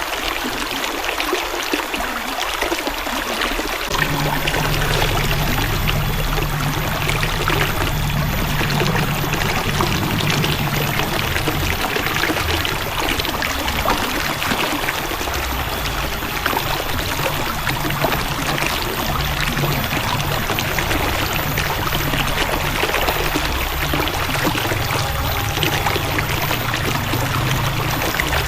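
River water flowing and splashing steadily. A low rumble joins about four seconds in.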